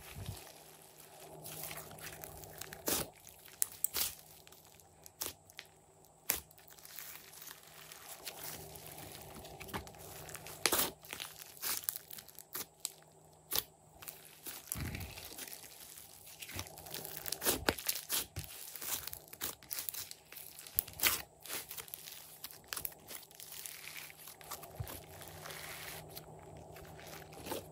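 Hands kneading and squeezing a large mass of glossy slime, then stretching it near the end: wet squishing with many irregular sharp clicks and pops.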